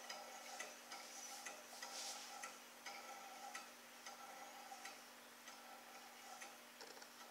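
Small low-temperature Stirling engine on a cup of hot water, turning over with faint, irregular ticks and short squeaks from its dry, unlubricated piston and flywheel linkage. The sounds thin out toward the end, as it is not yet warm enough to run properly.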